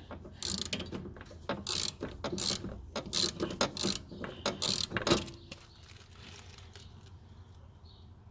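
Wrench working the nut off a front sway bar link's lower stud: a rapid, uneven run of sharp metallic clicks and scrapes that stops about five seconds in, once the nut has broken loose.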